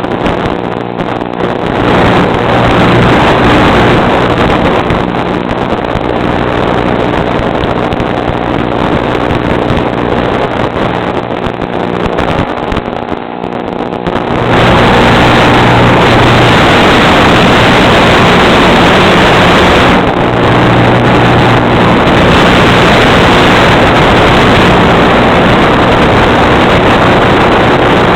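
A motor running steadily with a noisy rush like wind over it, getting louder about halfway through and holding there.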